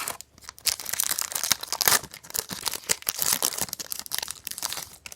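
Crinkling and tearing of a trading-card pack wrapper as it is opened, a dense run of crackles lasting about four seconds.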